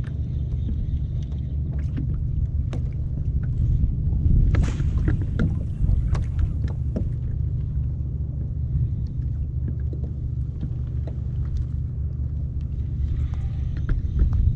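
Water lapping against the plastic hull of a Hobie Pro Angler kayak on a choppy sea, under a steady low rumble, with scattered small knocks and slaps. The loudest knock comes about four and a half seconds in.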